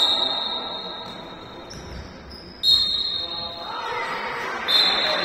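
Referee's whistle blown in three sharp, steady, high-pitched blasts about two seconds apart, over crowd chatter.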